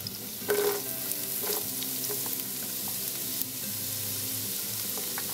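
Diced red onion sizzling in hot olive oil in a nonstick pot as it is tipped in, a steady frying hiss with a brief louder patch about half a second in.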